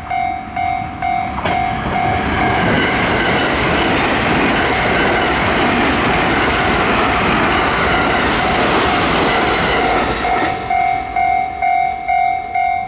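Level-crossing warning bell ringing at about two strikes a second, while a train passes over the crossing about a second and a half in. For about nine seconds the train's wheels on the rails drown out the bell, which is heard again as the train clears.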